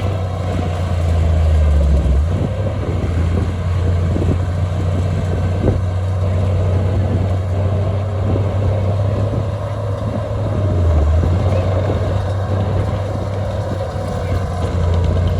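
Heavy diesel engine of earthmoving machinery running steadily, with a strong low drone and scattered knocks, one sharper knock about six seconds in.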